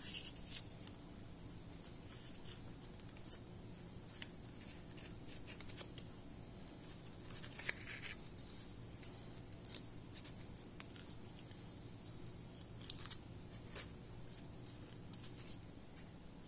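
Strips of printed paper crinkling and rustling in short, scattered crackles as they are folded and tucked around a raw stuffed chicken breast, over a faint low hum.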